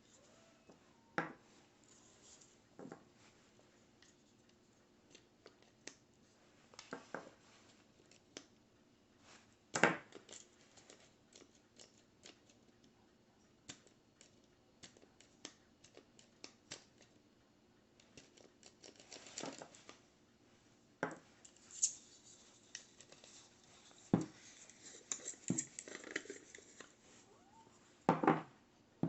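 Faint handling of small hard objects: irregular clicks, taps and brief scraping, with a few sharper knocks.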